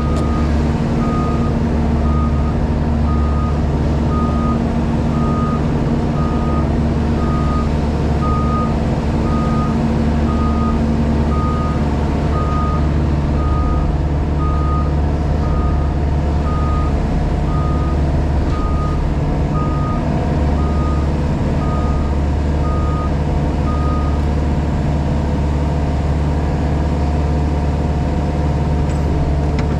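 A JCB Pothole Pro's diesel engine running steadily under a machine's warning alarm, which beeps at a single high pitch in a regular series. The beeping stops near the end while the engine runs on.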